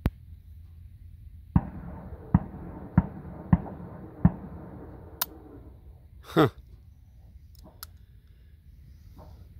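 Five sharp gunshots in quick succession, about two-thirds of a second apart, each followed by a rolling echo that fades away over the next two seconds. A lone sharp click comes just before them, and a short sound that falls in pitch comes about two seconds after the last shot.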